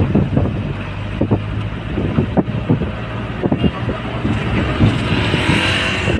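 Road and engine noise from riding in a moving vehicle, with wind buffeting the microphone in irregular low thumps. The noise swells about five seconds in as a motorcycle comes up alongside.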